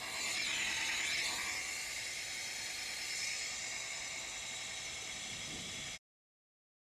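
Wet/dry shop vac running with a steady hiss and whine as it sucks water off the pool bottom, a little louder in the first couple of seconds; the sound cuts off suddenly about six seconds in.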